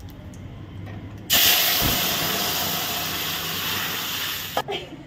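Loud sizzle from a metal kadai of hot oil tempered with cumin seeds, bay leaves and dried red chillies as the contents of a pot are tipped in. It starts suddenly about a second in, fades slowly and cuts off shortly before the end.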